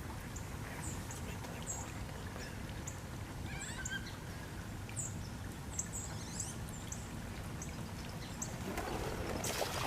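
Birds chirping in short, high notes scattered over a low outdoor rumble, with a rustling noise swelling up near the end.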